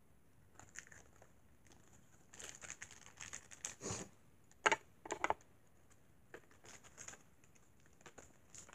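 Plastic Shopkins toy packaging being torn open and crinkled by hand, in scattered bursts, with a few louder sharp crackles around the middle.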